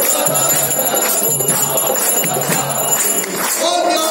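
Small brass hand bell rung continuously during a Hindu aarti, over devotional singing.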